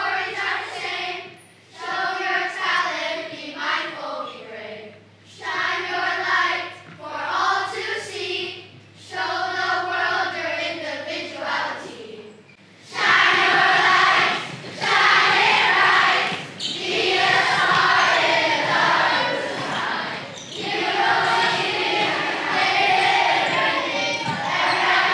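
A large children's choir singing, first in phrases broken by short breaths, then louder and fuller from about halfway through.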